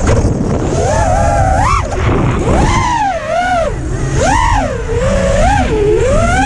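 Brushless motors of an ImpulseRC Apex FPV freestyle quadcopter on a 6S battery, whining as the pilot works the throttle. The pitch swoops up and down about half a dozen times and climbs highest near the end, over a steady rush of air.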